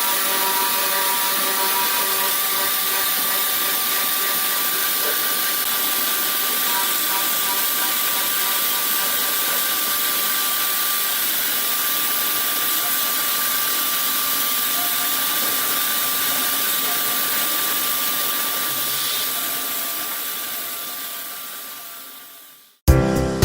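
A machine tool running steadily, a constant hissing rush with several steady whining tones over it, typical of a CNC machine cutting. It fades out near the end.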